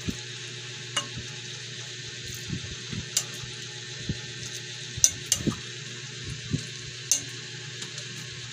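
Metal ladle scooping and pouring fish broth into a ceramic serving bowl: several sharp clinks of the ladle against the bowl over a steady hiss.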